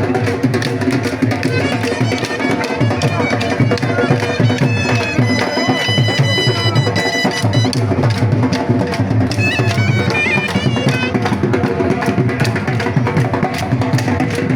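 Traditional music with fast, dense drumming and a held, reedy wind-instrument melody above it, clearest in the middle.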